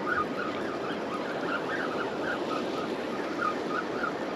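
Surf washing steadily, with a faint chirp repeating about three times a second from the Penn spinning reel as a hooked fish runs against it.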